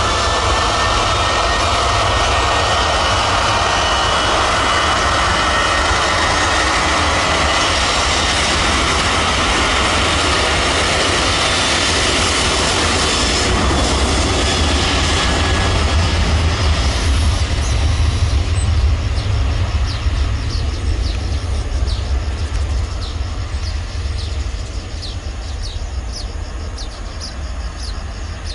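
Jet airliner passing close: a loud engine roar with a high fan whine that builds to its loudest about two-thirds of the way through, then fades away. Birds chirp as the roar dies down.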